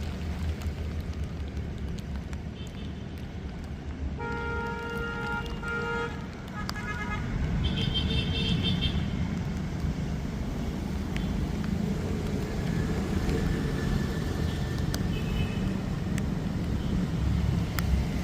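Road traffic over a steady low rumble. A vehicle horn sounds for about two seconds, starting about four seconds in, and a shorter, higher-pitched beep follows around eight seconds.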